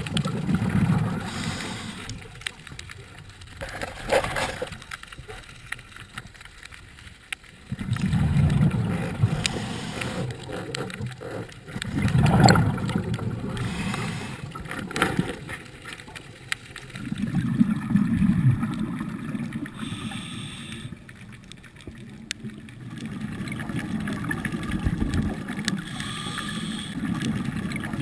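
Scuba diver's exhaled regulator bubbles rumbling in surges every few seconds, heard underwater through the camera housing, with scattered faint clicks between breaths.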